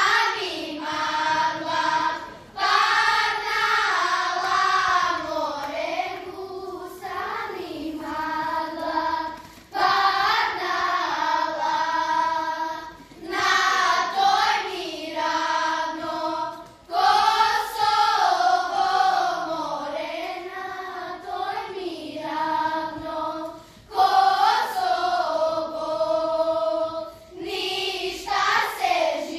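A children's choir of schoolchildren singing a song together, in phrases of a few seconds with short breaks for breath between them.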